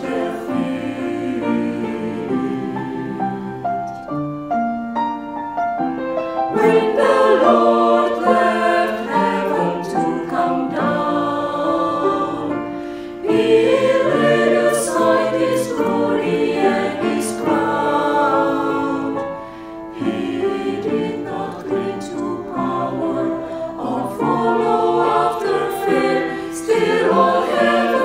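Mixed church choir singing a slow English-language anthem with piano accompaniment, softer at first and growing fuller about six seconds in.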